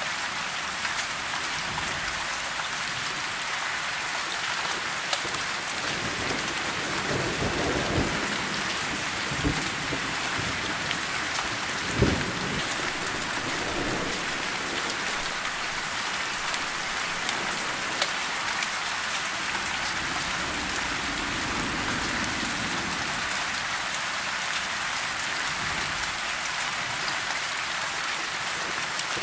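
Steady rain falling on broad leaves, with thunder rolling in: a low rumble about seven seconds in and a sharper clap about twelve seconds in.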